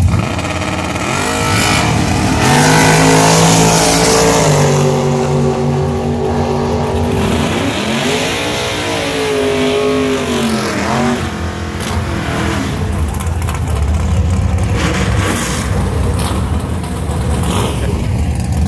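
Two drag-racing cars launching off the starting line and accelerating hard down the strip. Their engine note climbs in pitch, steadies around four seconds in, then rises and falls again a few seconds later.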